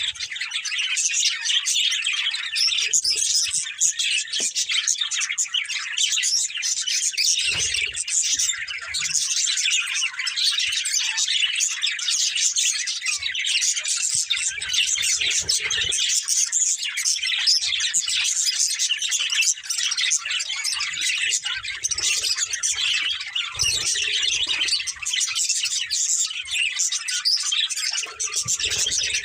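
Budgerigars chattering and chirping continuously, several birds at once in a dense, unbroken warble.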